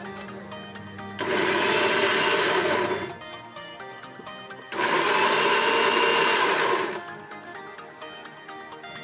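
Electric mixer grinder run in two bursts of about two seconds each, grinding boiled spinach into a fine paste.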